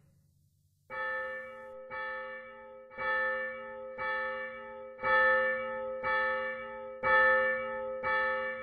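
A single bell tolling about once a second, starting about a second in: eight strikes of the same pitch, each one ringing on into the next.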